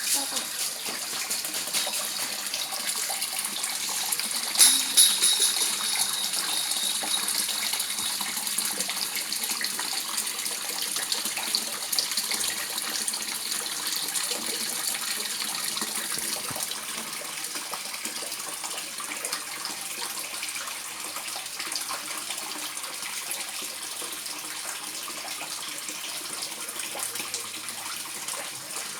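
Steady splashing of running water into a koi pond, with one louder splash about five seconds in.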